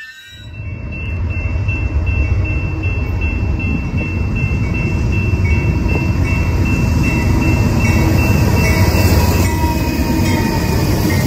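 BNSF freight train led by GE C44-9W diesel locomotives approaching and passing close by: a steady low rumble of engines and wheels that builds over the first couple of seconds and then stays loud. A thin, steady high whine rides over it through the first half.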